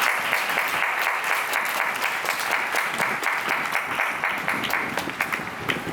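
Stadium crowd clapping: dense, steady applause that thins out toward the end.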